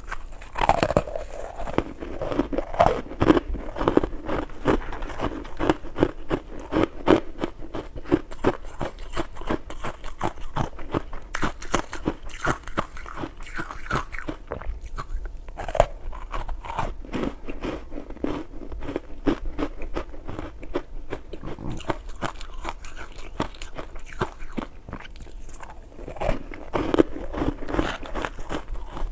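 Close-miked crunching and chewing of soft, powdery ice coated in matcha powder: bites breaking off and dense crackling as the ice is chewed, with louder bites near the start and near the end.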